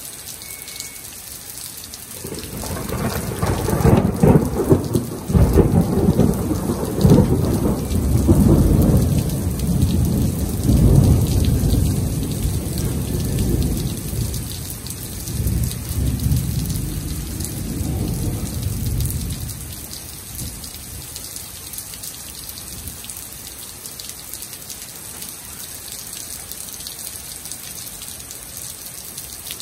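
A long roll of thunder over steady rain. The rumble swells about two seconds in, is loudest for the next several seconds, then rolls away and dies out about twenty seconds in, leaving only the rain.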